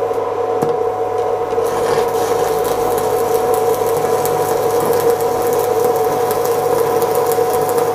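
Stick (shielded metal arc) welding with a 3/32-inch E7018 low-hydrogen electrode at 90 amps: the arc is struck and burns steadily with a continuous crackling hiss over a steady hum. The crackle grows denser about a second and a half in.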